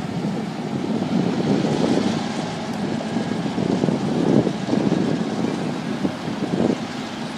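Wind buffeting the microphone in uneven gusts, over a low rumble of street traffic.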